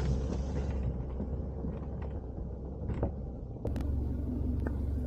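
Isuzu D-Max ute driving slowly along a dirt track: a steady low rumble of engine and tyres, with a few light knocks and rattles.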